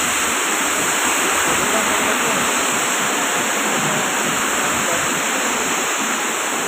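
Very heavy rain pouring down on a road and pavement: a loud, steady hiss with no breaks.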